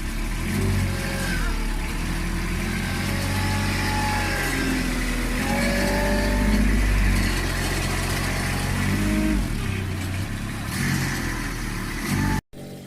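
Backhoe engine running under load, its pitch rising and falling as the machine works. It cuts off suddenly near the end.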